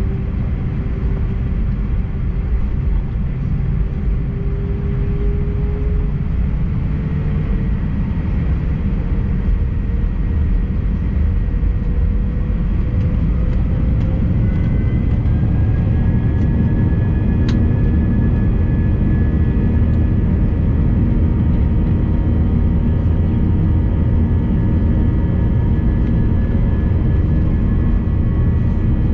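Airbus A319 jet engines heard from inside the cabin: a loud low rumble with whining tones that rise in pitch over the first half and then hold steady, as the engines spool up to takeoff thrust.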